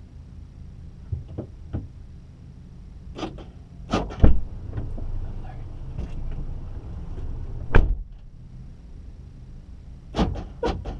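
A string of knocks and thumps, a few light ones at first, then loud thumps about four and eight seconds in and two more near the end, over a low rumble.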